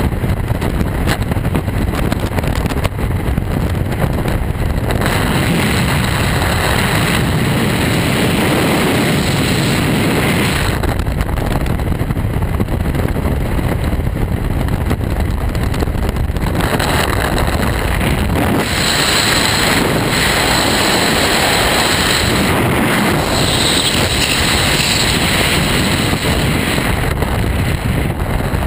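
Loud, steady rush of freefall wind buffeting the camera's microphone during a skydive, its tone changing several times.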